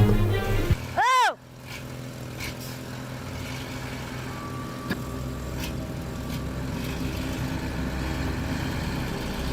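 Music cuts off about a second in with a short, loud pitched tone that sweeps up and back down. It is followed by a heavy truck's engine running steadily and slowly growing louder.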